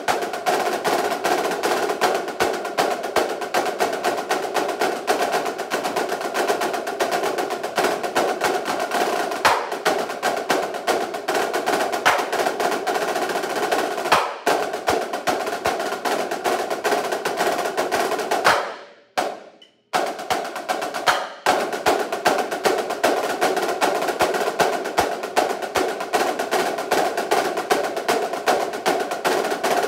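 Two marching snare drums played together: fast, dense strokes and rolls, with a short break about two-thirds of the way through before the playing picks up again. The reverberant room makes the sound wet and echoing.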